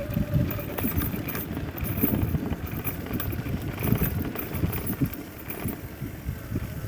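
Self-built electric bike rolling over a bumpy forest trail: uneven rumbling with irregular knocks and rattles. The electric drive motor's steady whine cuts out about half a second in.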